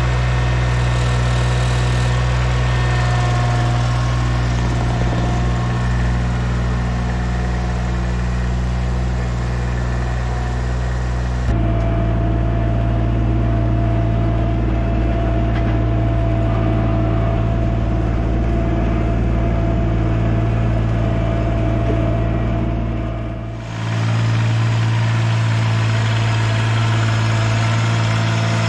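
Ventrac compact tractor's engine running steadily at a constant speed while towing a dead garden tractor. The overall tone changes abruptly about eleven seconds in and again near the end.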